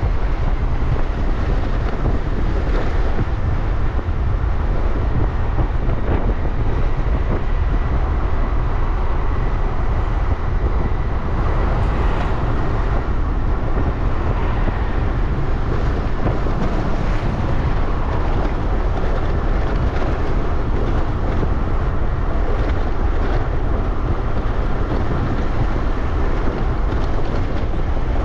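Wind noise on the microphone of a moving motor scooter, over the steady running of the scooter and the road and traffic around it.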